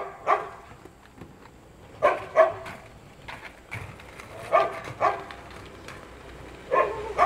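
A dog barking in double barks, four pairs about two and a half seconds apart.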